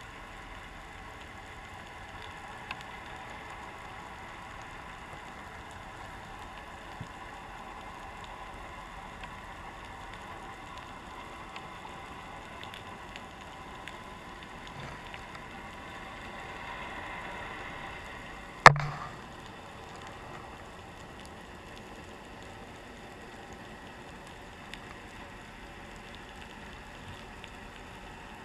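Underwater ambience picked up by a GoPro in its waterproof housing on the seabed: a steady faint hiss with scattered small clicks, and one sharp knock about 19 seconds in.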